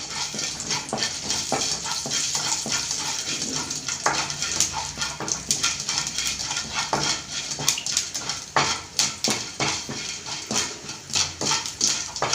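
Mustard seeds and urad dal sputtering in hot oil in a kadai: a steady sizzle with many irregular sharp pops as the seeds crackle.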